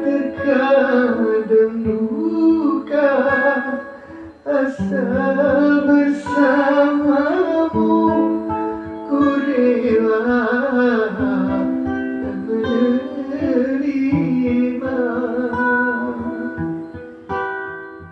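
Guitar fingerpicked, playing an instrumental passage of notes and chords. A final chord is struck near the end and left to ring.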